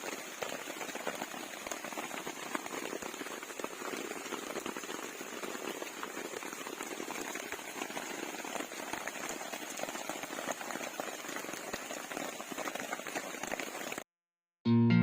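Steady rain pattering, dense with small drop ticks, with a steady high-pitched drone above it. It cuts off suddenly about a second before the end.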